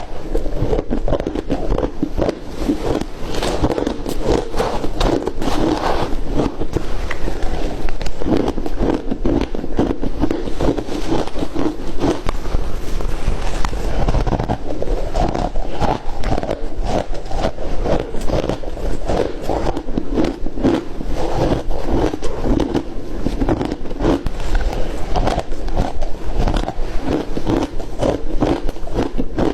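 Continuous close-up crunching and chewing of ice, a dense run of crackly crunches without pause.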